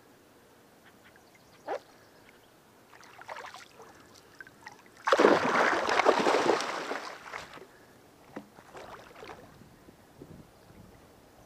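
Water splashing for about two seconds, starting suddenly about five seconds in, as a bowfishing arrow on its line is pulled up out of shallow water. Faint small splashes and knocks of water come before and after.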